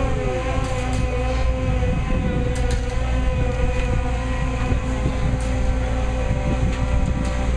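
A large diesel engine running steadily, likely the crane lifting boats, with a droning whine that wavers slightly in pitch over a low rumble.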